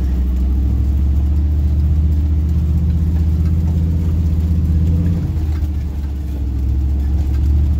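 GM LS V8 engine in a 1969 Nissan Patrol G60 running at low trail speed, heard from inside the cab as a steady low rumble that eases briefly about five and a half seconds in and picks up again near the end.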